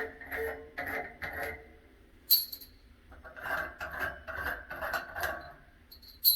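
Small light-fixture hardware being handled: light clinking and rattling, with two sharp clinks that ring briefly, one about two seconds in and one near the end, and a stretch of rubbing clatter between them.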